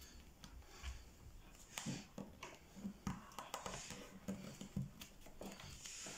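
Faint rustling and crinkling of a small sheet of paper being folded and creased by hand on a tabletop, with a few soft ticks and taps. It comes in scattered short bits, a little stronger about two and three seconds in.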